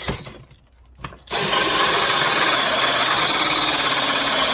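Power drill running steadily. It starts about a second in, after a couple of short knocks.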